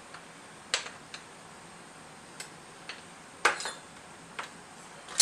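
A screwdriver and loosened outboard motor housing parts clicking and knocking as the housing is pried apart. About six scattered light clicks, the loudest about three and a half seconds in.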